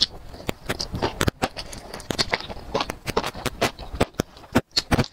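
Close-up eating sounds: wet slurps and many quick chewing smacks and clicks as grilled enoki mushrooms are sucked off a skewer and chewed.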